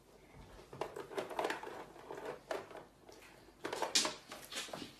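Faint, irregular rustling and crinkling with small knocks: a packet of food being handled and rummaged at a shelf, loudest about four seconds in.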